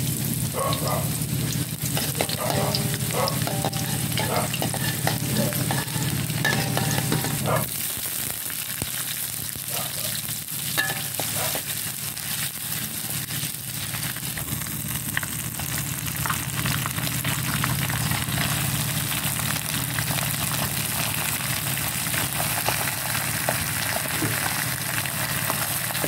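Hot oil sizzling in a steel wok as sliced aromatics fry and are stirred, with scattered clicks of stirring. Leafy greens are tossed in and stir-fried, and the sizzle carries on. A low background hum stops about eight seconds in.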